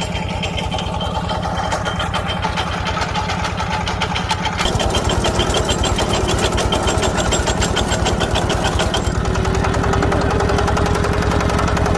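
Engine of a root-crop digger running with a fast, even beat; about five seconds in it grows louder and a rattle joins as the machine works, easing off about four seconds later, and a steady hum comes in near the end.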